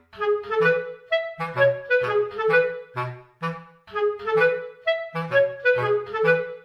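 Background music: a clarinet-like woodwind melody over a bouncy, regular bass line.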